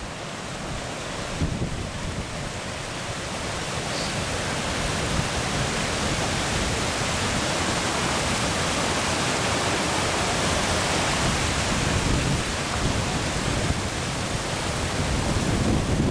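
Steady rushing of floodwater pouring through a broken beaver dam, building a little over the first few seconds, with wind buffeting the microphone.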